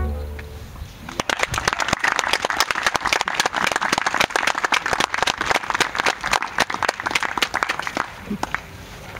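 The last bowed note of the violin and double bass fades out right at the start. About a second in, the audience starts applauding, and the clapping dies away near the end.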